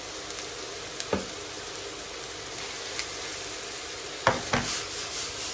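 Shrimp and vegetables sizzling steadily in a stainless steel wok as julienned carrot and courgette are tipped in. A few light knocks break in, with a louder pair just past four seconds.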